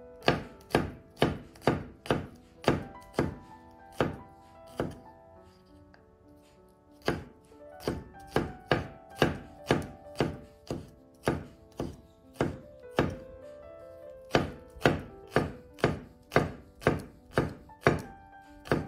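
Chef's knife chopping on a wooden cutting board, regular strokes about two a second, pausing for a couple of seconds near the middle before picking up again. Background music plays under it.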